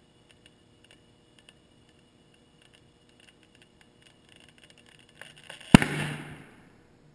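An overinflated soccer ball bursting on a compressed-air hose: scattered faint crackling ticks come faster as the ball strains, then about six seconds in a single sharp bang, followed by a rush of escaping air that fades within about a second.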